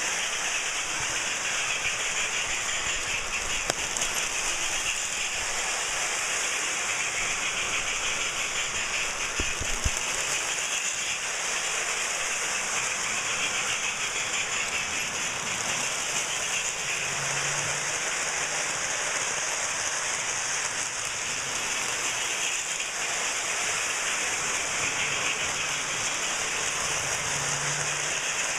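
Lionel O gauge toy trains running around the track: a steady rattling hiss of wheels on the rails and motors running.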